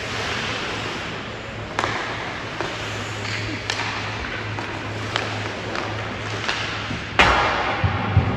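Ice hockey play in an arena: sharp clicks of sticks and puck come every second or so over a steady arena hum. About seven seconds in there is one loud heavy bang, like a puck or body hitting the boards, followed by a few low thumps.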